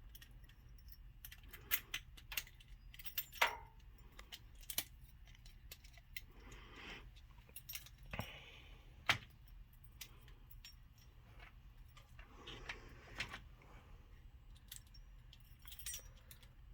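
Metal padlock parts being handled and fitted: scattered light clicks and clinks, with a few short scrapes.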